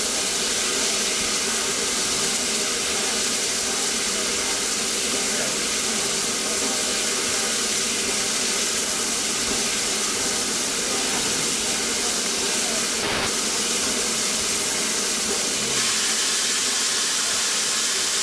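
Peppercorn A1 Pacific steam locomotive standing at rest, hissing steam steadily, with one short click about two-thirds of the way through.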